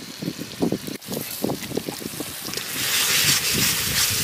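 Spice paste of ground spices and yogurt going into hot oil in an iron kadai and sizzling, the sizzle growing much louder about three seconds in as it is stirred into the masala.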